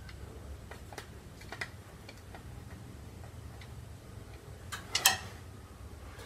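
Scattered light metallic clicks of hand tools and small screws on a Land Rover's steel chassis, with a sharper double click about five seconds in, over a low steady hum.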